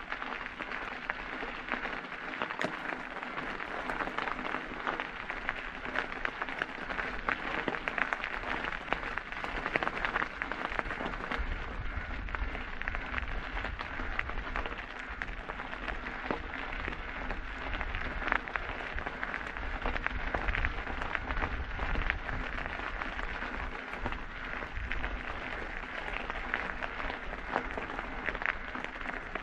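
Mountain bike tyres rolling over a gravel and stone trail: a steady, dense crunching and crackling of loose stones with small rattles. A low rumble joins about ten seconds in and continues.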